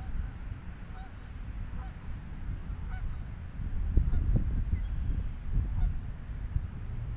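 Wind rumbling on the microphone, with geese honking faintly about once a second.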